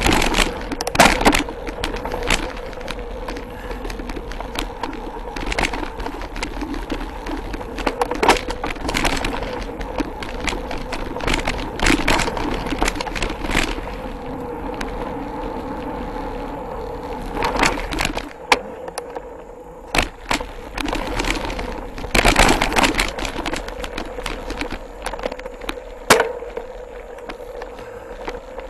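Mountain bike ridden over a rough dirt trail, heard from a handlebar-mounted camera: steady tyre and wind noise with frequent sharp clatters and knocks as the bike hits bumps. About two thirds of the way through, the rushing noise drops as the bike slows, leaving scattered knocks.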